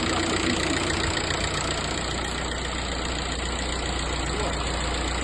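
Audi A4 B6 engine idling steadily while the steering wheel is turned, with no whistle or squeal from the freshly replaced alternator pulley.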